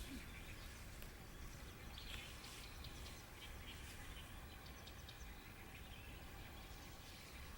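Faint, scattered bird chirps over a steady low outdoor rumble and hiss.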